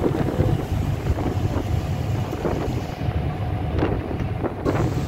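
Wind buffeting the microphone aboard a moving boat, over the steady low run of the boat's engine and the wash of choppy water against the hull, with a couple of brief splashes near the end.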